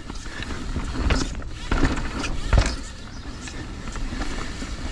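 Transition Spire mountain bike rolling along a dirt trail, with tyre noise, low wind rumble on the microphone and a few sharp knocks from the bike over bumps.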